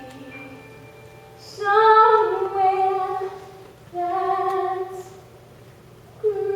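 Female singing in a stage musical number: two long held phrases that slide in pitch, over a soft sustained accompaniment. Fuller instrumental accompaniment comes back in near the end.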